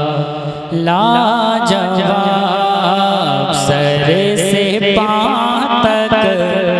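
Naat singing: a male voice drawing out a long wordless melismatic line, gliding up and down, over a steady low drone.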